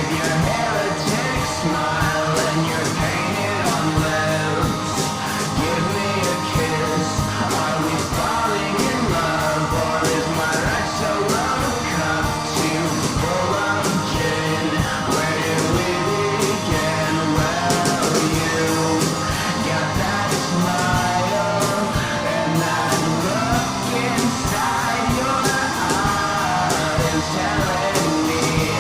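A song with singing over a steady beat, as the soundtrack of a fan edit.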